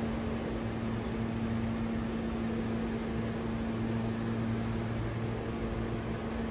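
Steady low mechanical hum with a constant drone over a soft noise bed, unchanging throughout.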